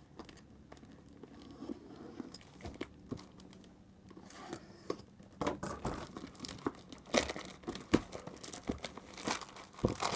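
Parcel packaging being torn open and crinkled by hand: a few faint rustles and clicks at first, then from about halfway in a busy run of crackling, tearing and crumpling.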